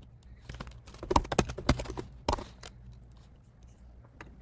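Typing on a computer keyboard: a quick run of key clicks from about a second in to just under three seconds, with a few scattered clicks around them.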